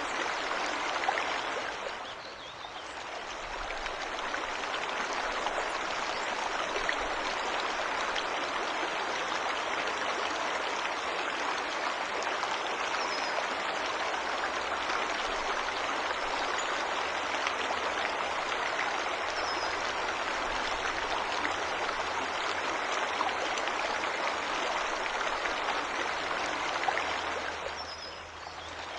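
Steady rush of a forest waterfall, with a few faint, short bird chirps high above it. The water sound dips briefly about two and a half seconds in and again near the end.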